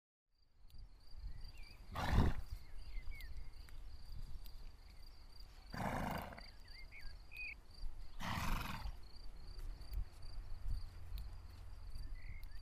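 A horse snorting, blowing out through its nostrils three times a few seconds apart, with small birds chirping faintly between the snorts.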